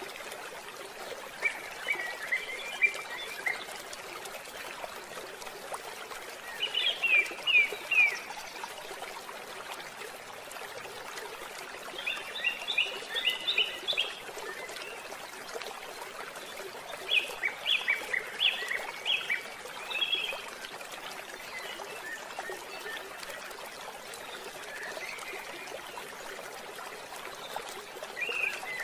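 Background nature track: a steady rush of running water, with a burst of quick high bird chirps every five seconds or so.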